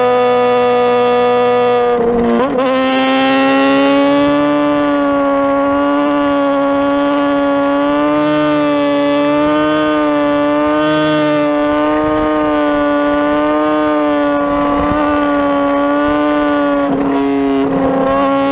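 Sport motorcycle engine held at high, steady revs, giving a loud, even drone. The drone is briefly interrupted about two seconds in and again near the end.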